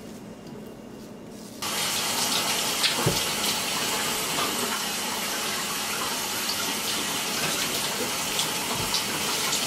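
Kitchen tap turned on about a second and a half in, water running steadily into the sink, with a few small knocks.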